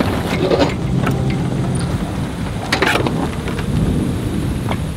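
Wind rumbling on the microphone, with loose sailcloth flapping and a few sharp knocks from the rigging, the loudest about three seconds in.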